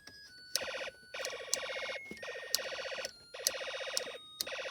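Snap Circuits electronic alarm circuit set off by pressure, sounding an electronic alarm tone through its small speaker. The tone comes in five separate buzzy bursts, each opening with a sharp click.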